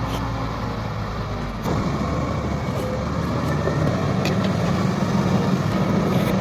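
A large snow-clearing vehicle's engine running steadily with a low drone.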